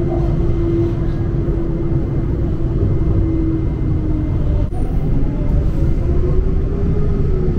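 Tram running along its track: a steady low rumble with an electric motor whine that sinks slightly, then climbs again in the second half.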